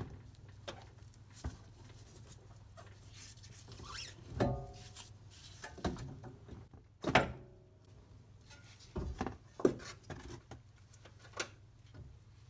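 Scattered metal clunks and knocks as a Honda Civic Si's driver-side CV axle is worked loose and pulled out of the hub. The loudest knock comes about seven seconds in, with a brief ringing. A low steady hum runs underneath.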